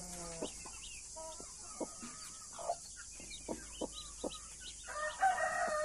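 Blue Brahma mother hen clucking in short calls, with her chicks peeping in small high chirps. About five seconds in, a rooster crows, the loudest sound, a long drawn-out call.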